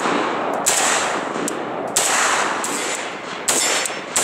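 Zastava M70 O-PAP AK-pattern rifle in 7.62x39 with a slant muzzle brake firing single shots, about one every second and a half. Three sharp cracks, with a fourth at the very end, each trailing off slowly.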